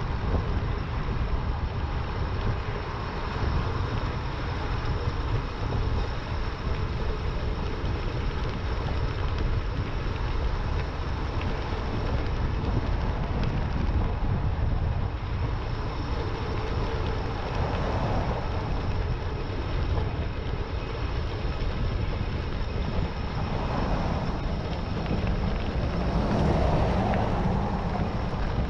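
Steady wind noise rumbling on the camera microphone of a moving e-bike, swelling briefly a little past the middle and again near the end.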